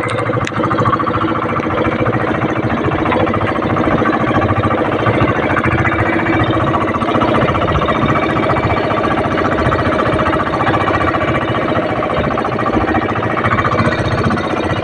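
Outrigger fishing boat's engine running steadily under way, with a fast, even pulsing beat.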